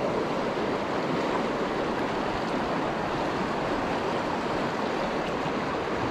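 Fast, shallow river riffle rushing steadily over a stony bed: an even, unbroken rush of water.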